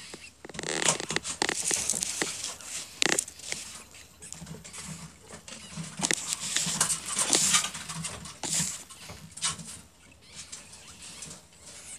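Newborn ferret kits, a few hours old, squeaking in their nest, with irregular rustling and crackling of the straw bedding.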